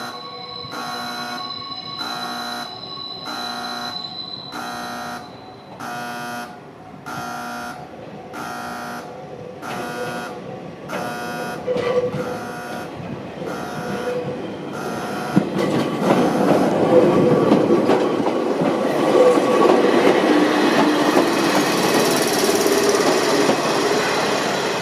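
Level-crossing warning bell ringing in an even pattern, about one ring a second, until about 15 s in. An electric commuter train then pulls into the station, its wheel-on-rail rumble rising and growing louder.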